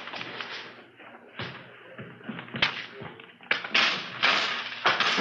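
Radio-drama sound effects of pocket contents being set down on a desk: a few separate sharp taps and thuds, then rustling near the end.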